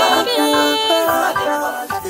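Music with a melody of held, pitched notes.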